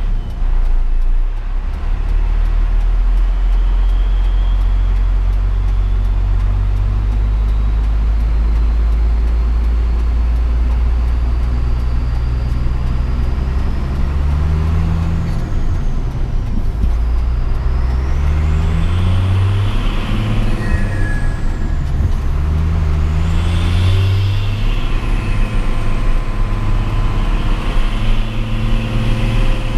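Hino 500 truck's diesel engine pulling hard and accelerating through the gears through its Cung-style exhaust. The engine note climbs and drops back several times in the second half as each gear is taken.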